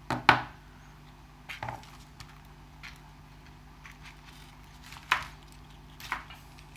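Small hard RC-car parts being handled: a few sharp knocks and clicks, the loudest right at the start and others about a second and a half in, near five seconds and near six seconds.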